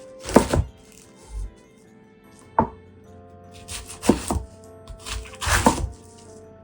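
Kitchen knife chopping cabbage into rough chunks on a cutting board: four crunchy strokes, a second or more apart.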